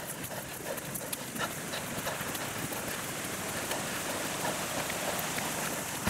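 Footsteps crunching on a gravel track with scattered sharp clicks, over a steady hiss that builds up over the first couple of seconds.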